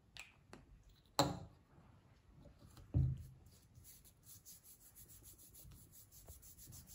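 A glued paper strip being rubbed flat by hand on a tabletop, in quick even strokes, several a second, through the second half. Before that, a sharp click about a second in and a dull knock about three seconds in as the glue stick is capped and set down.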